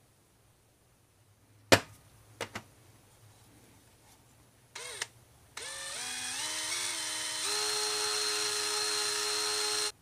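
A sharp click and two lighter clicks, then a cordless drill gives a short whir and runs steadily for about four seconds, its pitch stepping up before it levels off, and stops near the end. The drill is spinning a cotton swab coated in fine valve-lapping compound inside the carburetor bore, polishing out gummed fuel where the slide had stuck.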